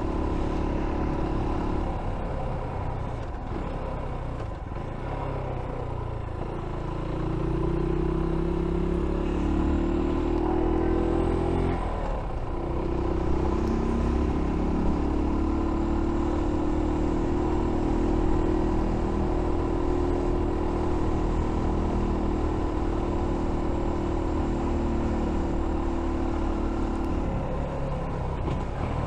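F.B Mondial Pagani 300 motorcycle engine running under way over wind noise: the engine note climbs through the revs, breaks briefly about twelve seconds in, holds a steady pitch, then drops as the throttle eases near the end.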